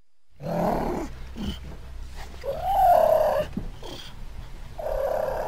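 Cougar vocalizing: three rough calls about two seconds apart, the middle one the longest and loudest, rising then falling in pitch.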